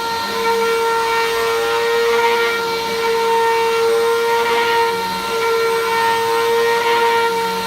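Vacuum cleaner running on a rug: a steady, high motor whine with a hiss that swells and fades as it is pushed back and forth.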